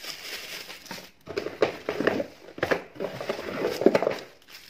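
Plastic wrapping crinkling and rustling as small packaged parts are handled and pulled from a box, in uneven spurts that grow louder after about a second.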